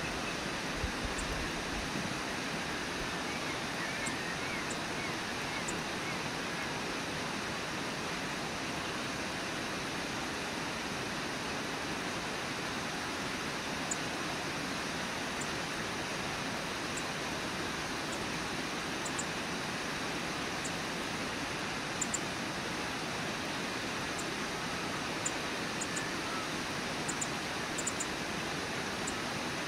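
Brooks Falls waterfall: river water pouring over the falls in a steady, unbroken rush.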